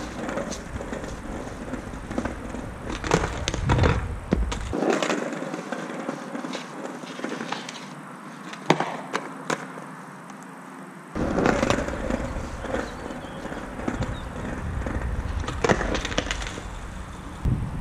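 Skateboard rolling on paving stones, with several sharp clacks of the board striking the ground as tricks are popped and landed.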